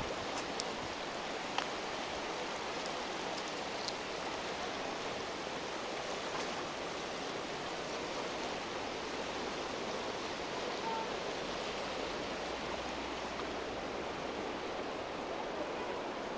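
Steady rushing noise with no pitch or rhythm, even throughout, with a few faint clicks in the first four seconds.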